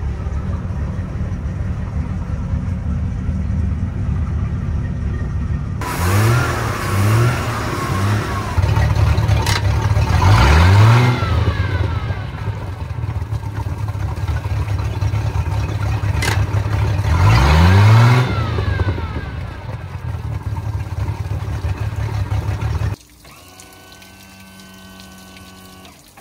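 MerCruiser 4.3 V6 sterndrive engine idling steadily on a trailer, fed by a flushing hose, then revved with several short throttle blips and two longer rises that fall back to idle. The engine sound cuts off abruptly near the end.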